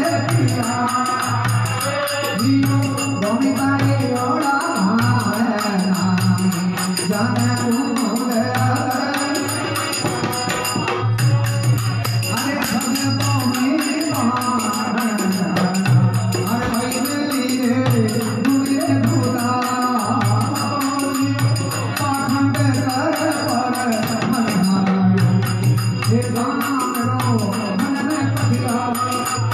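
A man sings a Rajasthani devotional bhajan (a Bishnoi sakhi) to a harmonium, with a dholak drum keeping a steady beat under the voice.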